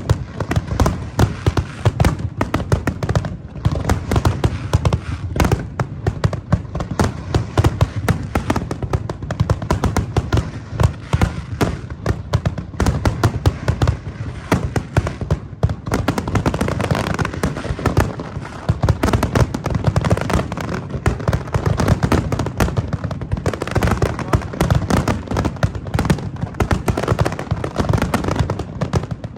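Fireworks display: a dense, continuous barrage of bangs and crackles, many bursts every second, with deep booms underneath.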